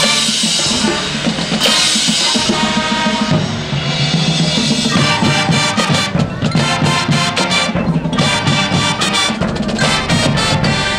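High school marching band playing, with saxophones and brass over marching drums. A bright crash rings through roughly the first four seconds, and the drums then keep a steady, driving beat.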